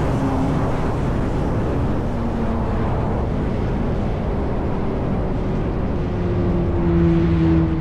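Yamaha R1 sportbike's inline-four engine through an SC-Project exhaust, running while riding. The revs sink and hold low for a few seconds, then climb and grow louder near the end.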